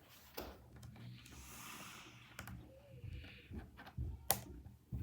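Small plastic Nanoblock building pieces being handled: a rustle of loose pieces for about a second, a shorter rustle later, and sharp plastic clicks, the loudest a little past four seconds in.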